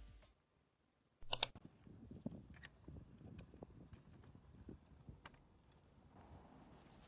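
A bunch of keys clatters sharply about a second in, then a key scrapes and clicks in a door's cylinder deadbolt as it is turned and drawn out, with small scattered clicks and rattles.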